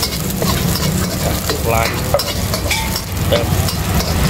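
A metal spatula scraping and clattering against a wok, stir-frying chopped garlic, chili and meat in hot oil that sizzles steadily.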